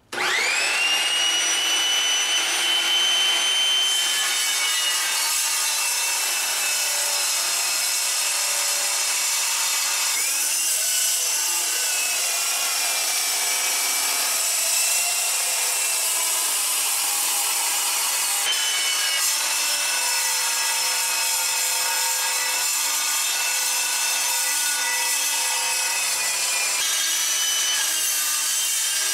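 FEIN Slugger 9-inch cold-cut metal saw spinning up with a rising whine, then its blade cutting through metal: a steady high whine over a harsh grinding rasp. The pitch and tone shift abruptly several times.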